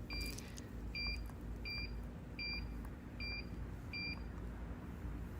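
Digital smart door lock's touch keypad beeping as a code is entered: six short, identical beeps, roughly one every three-quarters of a second.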